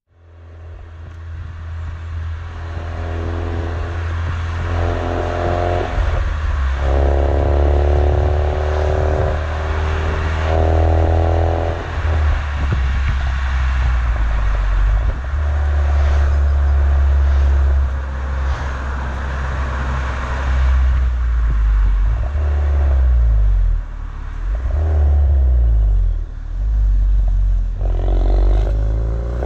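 Ford Focus RS MK3 exhaust heard at the tailpipes while driving, from its turbocharged 2.3-litre four-cylinder: a deep drone with the engine note climbing again and again as the car pulls through the gears, then revs rising and falling in short sweeps near the end.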